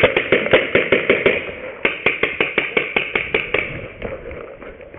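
Tippmann A5 paintball marker firing rapid strings of shots, about five a second. There is a brief pause about a second and a half in, then a second string, and only fainter shots follow after about three and a half seconds.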